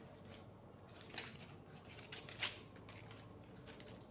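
Dry banana-fibre strips rustling faintly as hands handle and press them flat while weaving, with two sharper snaps: one about a second in and a louder one about two and a half seconds in.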